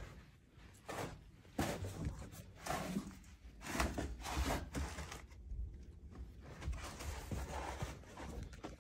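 Irregular scuffs and soft knocks of footsteps and movement in an empty room, with a low rumble through the second half.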